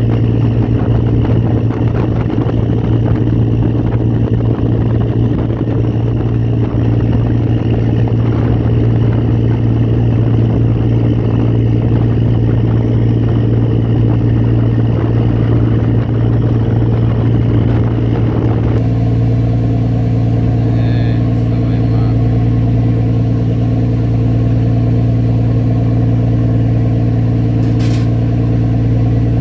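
Engine of the small boat carrying the recorder, running steadily under way: a loud, even drone with a deep hum. About two-thirds of the way through, the sound turns smoother and more even without getting quieter.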